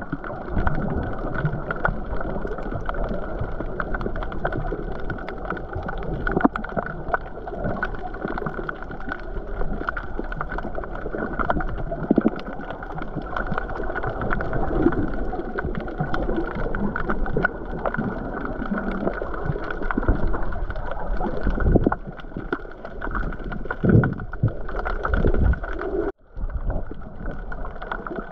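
Muffled water sloshing and gurgling, dull and cut off in the highs as if heard through a camera's waterproof housing, cutting out briefly near the end.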